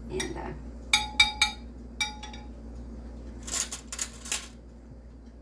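Metal kitchenware clinking: three quick sharp clinks with a short ring about a second in, another clink near two seconds, then a brief rattling clatter about three and a half seconds in.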